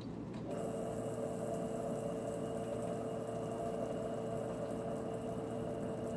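Electrical arcing inside an Emerson Turn of the Century ceiling fan: a steady buzzing hiss with a constant hum that starts about half a second in. The owner takes it for the fan's capacitor arcing.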